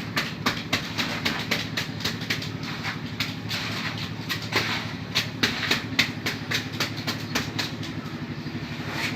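Road-works machinery: an engine running steadily, with many irregular sharp clacks and knocks over it.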